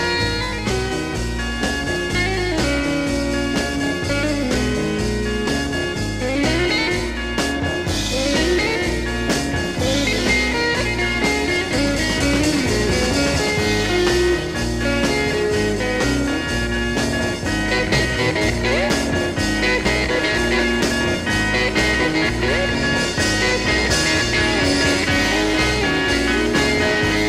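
Background instrumental rock-blues music led by guitar over a steady bass and beat.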